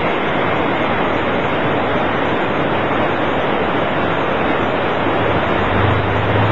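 Two-car diesel railcar train running close by, a loud steady rush of engine and wheel noise, with a low steady hum joining in near the end.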